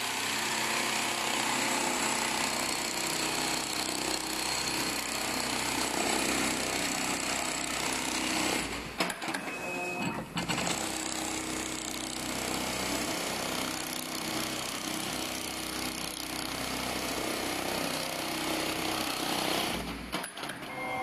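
Computerized pattern sewing machine stitching a shoe upper held in a template, its needle head running steadily at speed. It stops briefly about halfway through, then carries on.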